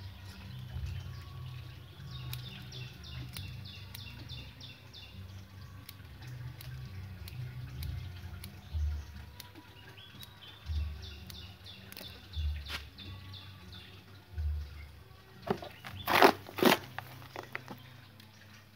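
Small birds chirping in quick runs. Near the end come a few loud scrapes and clicks as the bare roots of a bonsai are handled and trimmed with scissors.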